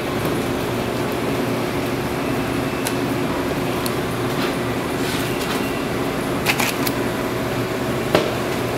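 Steady hum of a fan or cooling unit, with a few light clicks and knocks of a knife and meat on a cutting board as fat is trimmed off a beef roast.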